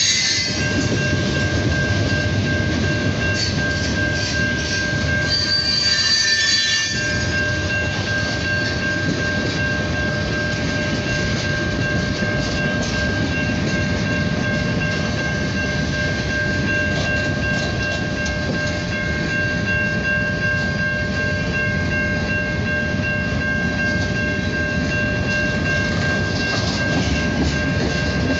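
Norfolk Southern manifest freight train's cars rolling past: steady rumble of wheels on rail with a constant high-pitched wheel squeal. Sharper, higher squeals come near the start and again about four to seven seconds in.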